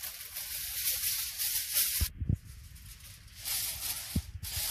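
Aluminium foil crinkling and rustling as it is handled and pressed over a chicken on an oven tray, in two stretches with a short pause about two seconds in. A couple of soft low knocks come with it.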